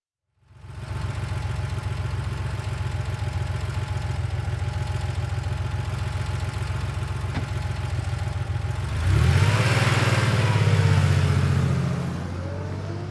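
Air-cooled flat-six engine of a 1990 Porsche 911 running, heard from outside the car. It comes in about half a second in and runs steadily, then about nine seconds in it gets louder and its pitch climbs and bends up and down before easing off near the end.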